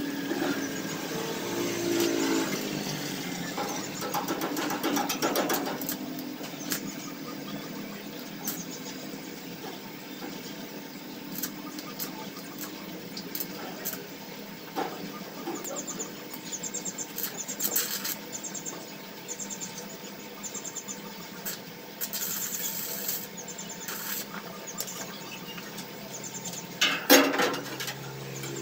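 Stick arc welder tacking metal: short bursts of crackling sizzle several seconds apart, the longest a little over a second, with one louder burst near the end.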